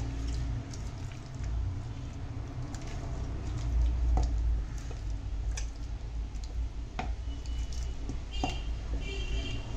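Wet squishing of a hand kneading chicken drumsticks in a thick red spice marinade in a stainless steel bowl, with a few sharp clicks against the bowl, over a steady low hum.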